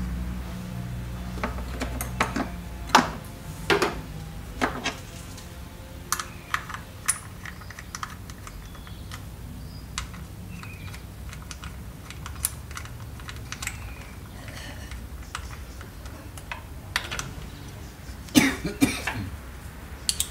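Hands working on top of a car engine: scattered light clicks and clacks of plastic and metal parts being handled and fitted around the spark plugs and ignition leads, with a quick flurry of clicks near the end.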